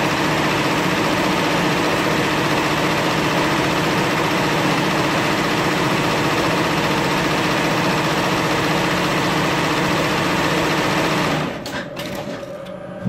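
Multi-needle industrial embroidery machine running steadily as it stitches. It stops about eleven and a half seconds in, with a few clicks.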